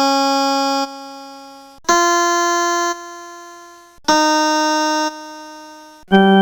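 Electronic organ playing single sustained notes one at a time, about every two seconds, each at a different pitch. Each note starts abruptly, holds steady for about a second, then drops to a quieter, fading tail. A lower note begins right at the end.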